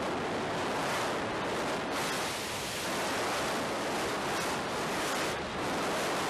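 Steady rush of wind over the microphone of a roller coaster train running at speed on steel track, with the train's running noise mixed in.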